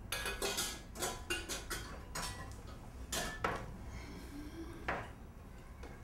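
An irregular run of small metallic clicks and clinks from a door's brass lever handle and a dangling key ring being worked as the door is opened. The clicks are densest in the first three and a half seconds, with a last one near five seconds.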